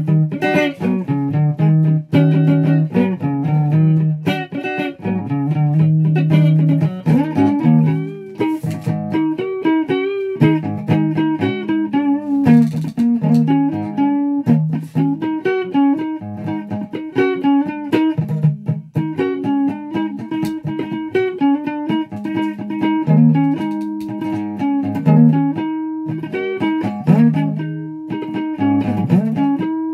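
Flying V-style electric guitar being played: picked single notes and melodic runs over low ringing notes, with a few string bends, one near the end.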